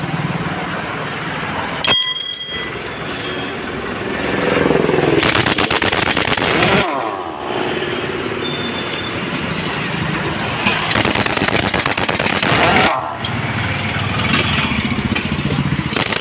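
Pneumatic impact wrench rattling on a truck's rear wheel nuts in spells, over steady passing highway traffic.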